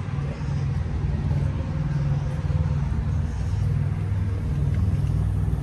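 Diesel semi-truck engine idling: a steady low rumble with a slight pulse.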